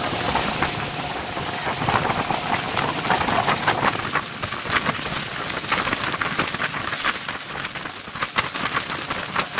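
Rushing wind-and-water noise aboard a moving motorboat: a dense hiss with many short crackles like spray and splashing.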